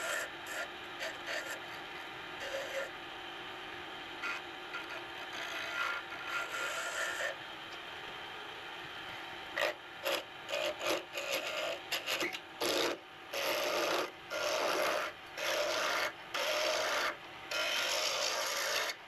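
Wood lathe spinning a purpleheart pen blank while a hand-held turning tool cuts it, giving a rasping sound of the cut, sped up to double speed. The cut runs fairly steadily at first; from about ten seconds in it comes as a string of short strokes with brief breaks between them.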